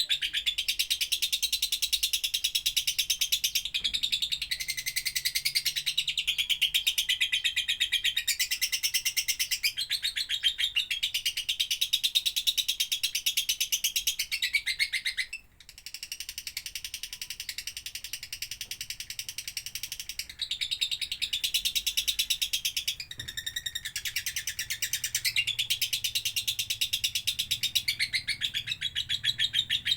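Lovebird singing a long, rapid, high-pitched chattering song, broken once by a brief pause about halfway through before it carries on.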